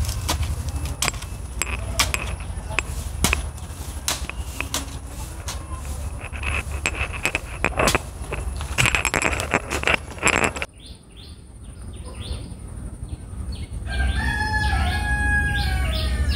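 A hoe chopping into loose soil and flinging it aside, with irregular repeated strikes and scrapes. The sound cuts off abruptly about ten seconds in. Near the end, birds are calling.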